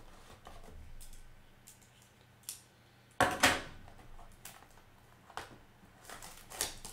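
Plastic shrink wrap on a trading-card blaster box being picked at and torn open, crinkling in short, irregular bursts, the loudest a sharp double crackle about three seconds in.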